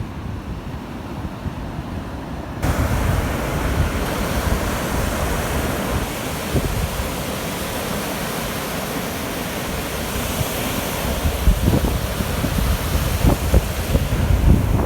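Baltic Sea surf breaking on a beach, with strong wind buffeting the microphone. The hiss of the waves comes in abruptly about two and a half seconds in, and the wind gusts hit the microphone harder near the end.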